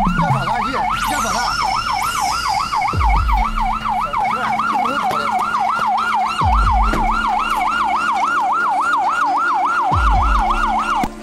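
Emergency vehicle siren in a fast yelp, its pitch rising and falling about three to four times a second without a break, with a few low thuds every few seconds underneath.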